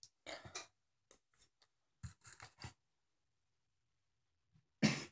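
Short scraping and clicking of a spoon and a cinnamon container being handled as more ground cinnamon is scooped, in three little clusters. This is followed by a short, louder sound near the end.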